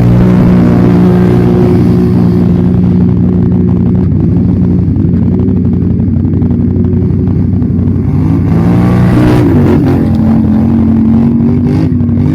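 ATV engine running loud and steady, its engine speed shifting about eight seconds in and then holding at a slightly higher pitch.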